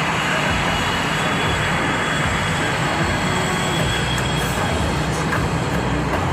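Blue Angels jet engines running on the ground, a steady loud rush of noise with a faint high whine over it.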